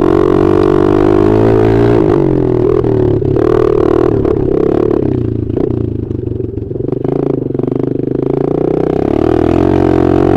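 Dirt bike engine heard up close from the rider's onboard camera, running hard along the track; the engine note drops off about halfway through as the bike slows for a turn, then picks up again.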